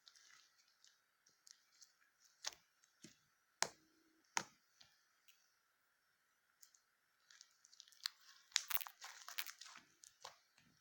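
Slime being squeezed and poked: scattered sharp clicks and pops, then a dense run of crackling about eight seconds in.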